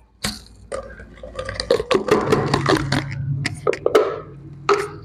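Slime squelching as it is pulled out of its plastic tub and squeezed in the hand, in a run of irregular wet squelches and pops.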